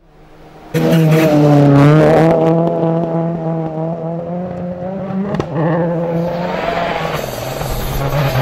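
World Rally cars' turbocharged engines held at high revs as they drive past on a snowy stage, the note wavering as the drivers work the throttle; it comes in abruptly under a second in, with a sharp pop about five seconds in before a second car is heard.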